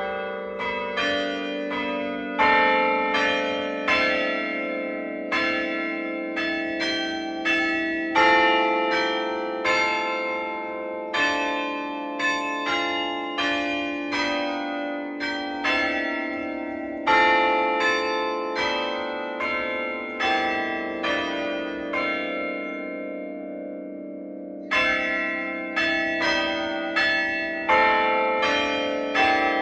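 Church tower bells being struck in a quick run of notes, about two or three strikes a second, each note ringing on under the next. About three-quarters of the way through the strikes stop for a few seconds and the bells die away, then the ringing starts again.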